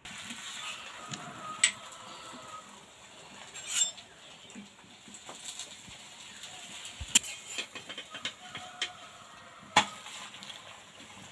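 Flat steel spatula scraping and tapping on a metal frying pan as a thin paratha is worked loose from it, with a few sharp clinks spread through and a faint sizzle underneath.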